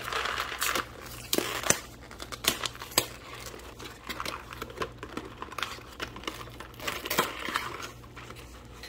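A cardboard mac and cheese box being torn open at one end: the cardboard rips and crinkles in the first second, then the flaps are pulled back with sharp cardboard clicks and taps, and there is another rustle of cardboard about seven seconds in. A faint steady low hum runs underneath.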